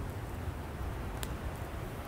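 Campfire burning: a steady low rumble with one sharp crackle of the firewood a little past a second in.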